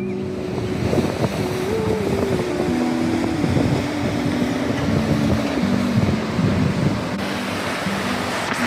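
Mountain creek, possibly snowmelt-fed, rushing and splashing steadily close to the microphone. Low steady tones step in pitch underneath.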